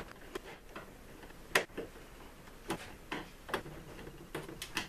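Irregular small metallic clicks and taps, about nine, from a screwdriver and stiff 8-gauge copper ground wire against the metal terminal and bus bar of a power center as the wire is bent into place and screwed down. The sharpest click comes about a second and a half in.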